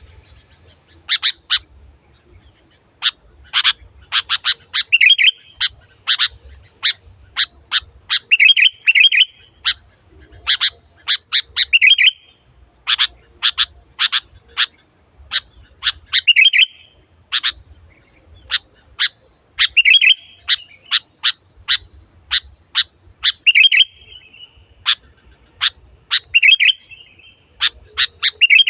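Sooty-headed bulbul (kutilang) calling loud and clear: a quick run of sharp chirps, broken every three to four seconds by a short bubbling phrase.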